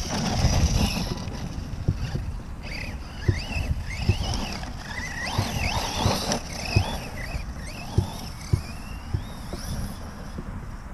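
Electric motor whine of a Reely Raptor 6S RC buggy, rising and falling in pitch with the throttle and ending in a longer rising sweep as it accelerates over the dirt. Under it, a steady low wind rumble on the microphone with scattered short thumps.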